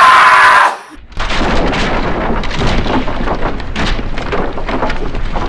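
A loud yell that cuts off just under a second in, then a dense run of rapid, irregular bangs and crackles with a low hum beneath.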